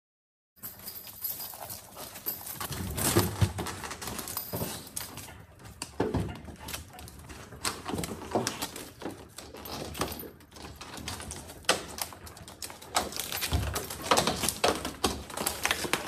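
A Tibetan mastiff and a smaller dog scrambling up a brick wall and through an open window frame: irregular knocks and scrapes of paws against brick, sill and frame.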